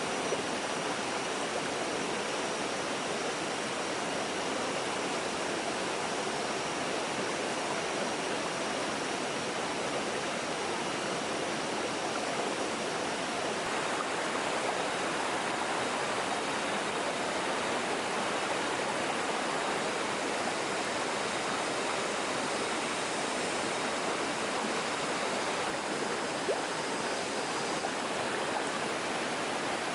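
Steady rushing of a forest stream: an even hiss of flowing water that does not change.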